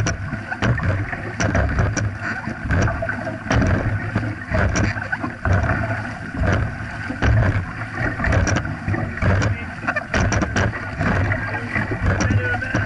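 Dragon boat paddles catching and pulling through the water in a steady rhythm of about one stroke a second, each stroke a splash, over water rushing along the hull.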